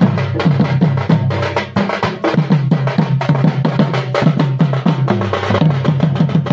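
Barrel drums beaten with sticks in a fast, dense rhythm: sharp stick strokes over a low drum note.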